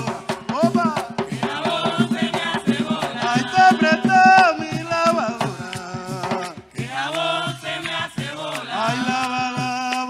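Live bullerengue sentao: voices singing over hand drums, in the Afro-Colombian call-and-response style. The singing drops away briefly near the middle while the drums carry on.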